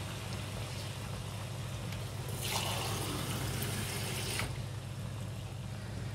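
Wooden spatula stirring chana dal in water in a non-stick pot: watery swishing, louder for about two seconds in the middle, over a steady low hum.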